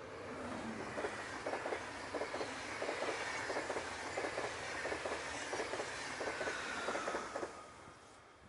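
Swiss SBB intercity passenger train passing at speed: the coaches' wheels clatter rhythmically over the rail joints, several clicks a second, with a faint whine slowly falling in pitch. The noise fades away near the end as the last coach goes by.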